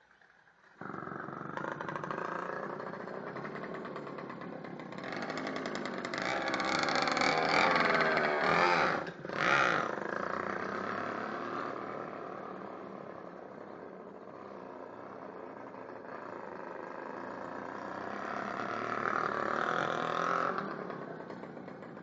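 Krasnyj Oktiabr 48 cc two-stroke bicycle engine catching suddenly about a second in and running, its revs climbing, dipping sharply about nine seconds in, rising again, then dying away near the end.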